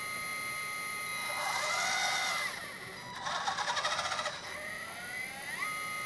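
Electric hydraulic pump of a 1:14 LESU 945 RC excavator whining steadily as the boom, arm and bucket are worked. Its pitch sags from about three seconds in and climbs back up near the end, with a brief fast chattering in the middle.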